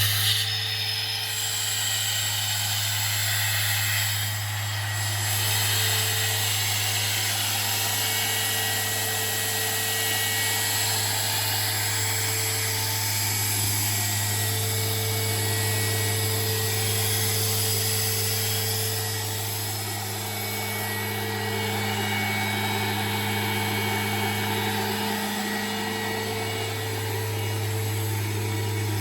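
Four-cylinder Kubota diesel engine of an Atlas Copco XAS67 towable air compressor running at a steady speed, just after starting.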